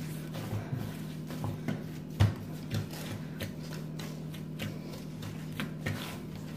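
Soft yeasted dough being kneaded by hand on a worktop while butter is worked into it: irregular soft thuds and presses of the dough, with one louder thump a little after two seconds. A steady low hum runs underneath.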